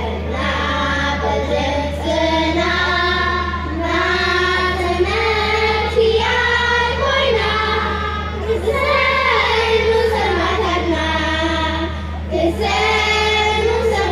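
A children's choir singing together, one sung phrase of held and gliding notes after another.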